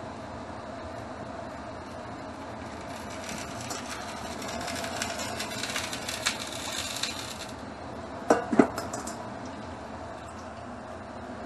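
Hot cooking oil crackling and sizzling for about four seconds as it is poured through a wire-mesh strainer, over a steady fan hum. Two sharp metal clanks come close together shortly after the crackling stops.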